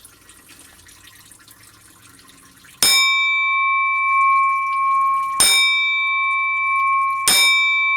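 Faint trickle of fluid draining, then a bell-like metallic ring struck three times, about three seconds in, past the middle and near the end, each ring held steady until the next strike.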